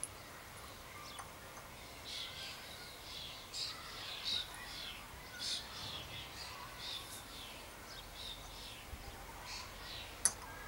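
Small birds chirping in the background, a steady run of short high calls, with one sharp click near the end.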